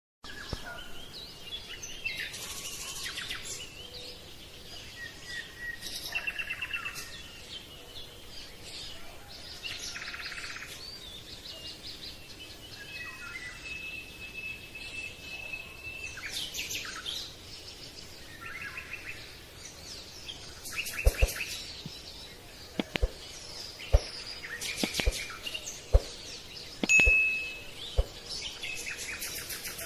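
Birds chirping and trilling in repeated high phrases, with a held whistled note partway through. From about two-thirds of the way in, a run of sharp clicks about a second apart stands out as the loudest sounds.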